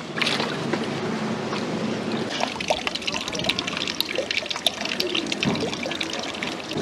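Water trickling and dripping from a plastic basket of live prawns lifted out of a water-filled tub, with small splashes and many light clicks as the prawns are handled.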